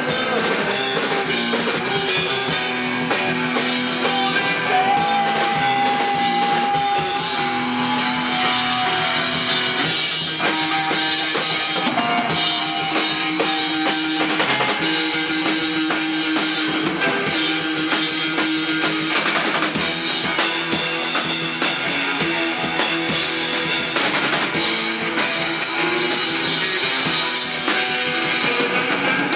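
A rock trio playing live: an electric guitar, a bass and a drum kit play an instrumental passage together, with a held guitar note about five seconds in.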